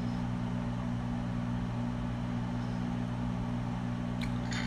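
Steady low hum of a running machine, several fixed low pitches held together without change, with a faint hiss over it. About four seconds in come a couple of light clicks of a metal spoon against a plate.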